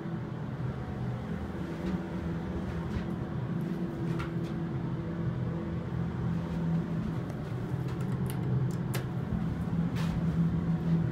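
Dover traction elevator cab in motion: a steady low hum from the car and its machinery, with a few light clicks scattered through.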